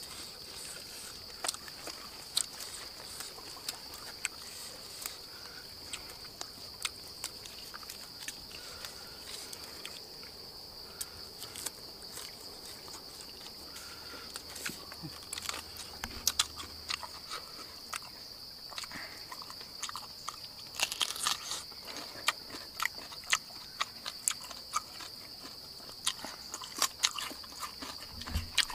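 A person chewing and biting food with many short, sharp crunches, over a steady high-pitched drone of insects.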